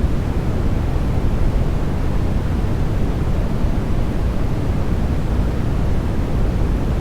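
Steady sleep white noise: an even, unbroken rushing sound, deep in tone with little high hiss, that does not change.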